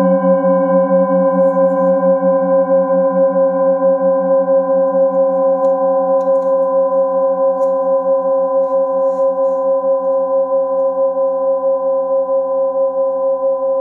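Singing bowls ringing on after being struck, several steady tones sounding together with a slow pulsing beat and gradually fading.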